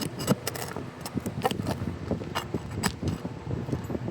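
Asphalt shingles being pried up with a tool slid underneath, breaking the adhesive seal and working at the nails: a run of irregular sharp clicks, cracks and scrapes.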